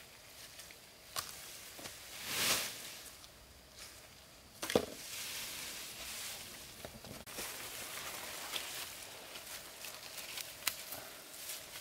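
Fern fronds and leafy undergrowth rustling as they are carried and handled, with scattered footsteps and clicks, a brief swell of rustling about two and a half seconds in and one sharp knock near the five-second mark, followed by steady rustling.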